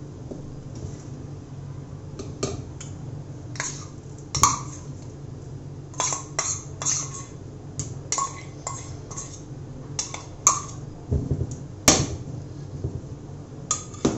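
Steel spoon clinking and scraping against steel bowls while scooping sticky jackfruit preserve into cake batter: a run of short, sharp clinks, several close together, from about two seconds in to near the end. A steady low hum runs underneath.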